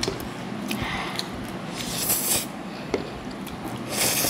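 Mouth sounds of people eating very spicy instant noodles: two loud hissing rushes of air through the mouth, about two seconds apart, with a short light click between them.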